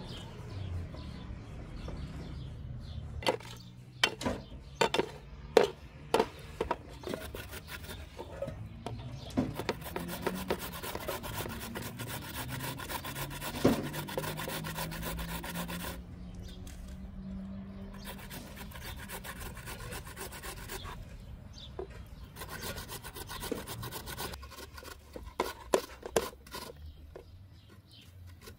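A potato being grated on a handheld metal grater: quick rasping strokes, fast and dense in the middle, with a few sharp knocks in between.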